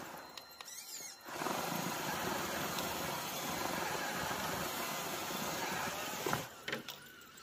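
Electric motor and gearbox of a radio-controlled rock crawler whirring as it crawls over loose rocks, starting about a second in. It stops near the end with a sharp knock.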